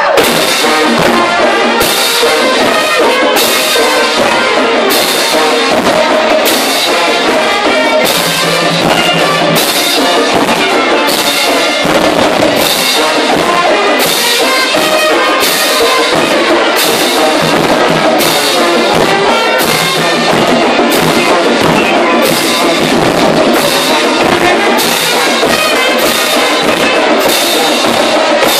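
Brass band playing live: trombones and trumpets over drums, with a steady beat.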